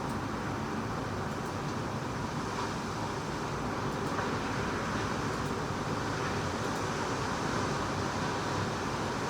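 Typhoon wind blowing hard and steadily, an even rushing noise that swells slightly now and then.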